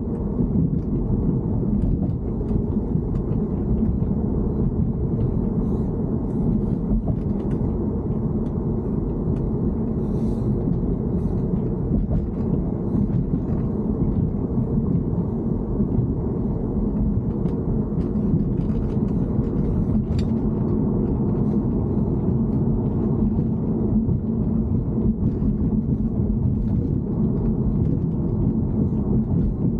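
Steady low rumble of a BMW E90 on the move, heard from inside the car, with faint scattered ticks or rattles over it.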